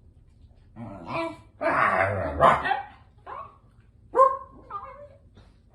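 A dog barking in a few short bursts, the loudest cluster about two seconds in, followed by a couple of short, higher yips near the end.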